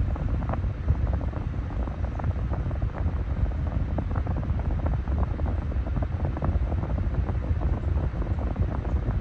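Massey 9-inch high-velocity desk fan running steadily, its airflow hitting the microphone as a low, fluttering wind rumble.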